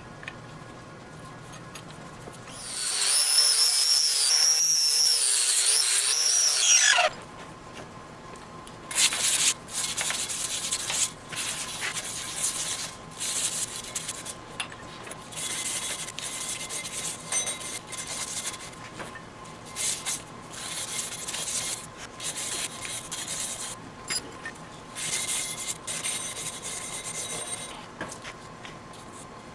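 Stick (arc) welding: the arc hissing and crackling steadily for about four seconds, then in short irregular bursts as the rod is struck and the arc starts and stops.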